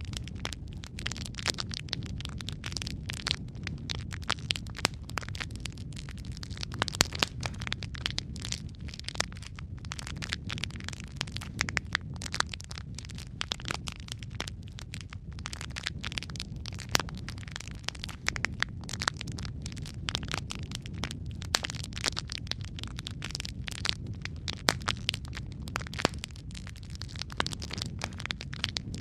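Wood fire of burning logs in a fireplace crackling, with a steady low rumble of the flames and many sharp pops and snaps at irregular intervals.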